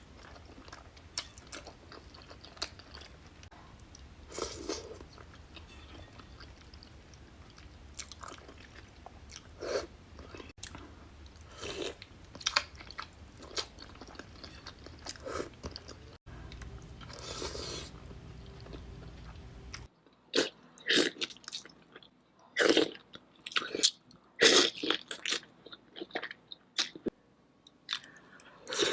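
Close-miked eating of seafood boil: bites, chewing and crunching with sharp wet smacks and clicks at irregular intervals. A low background hum runs under the first part and stops about twenty seconds in, where the bites become louder and sharper.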